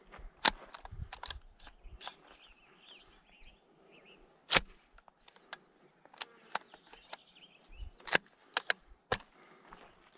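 Gunshots: three sharp shots about four seconds apart, with fainter cracks and clicks between them.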